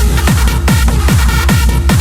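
Early hardstyle dance music: a hard kick drum with a falling pitch on every beat, about two and a half beats a second, under sustained synth tones.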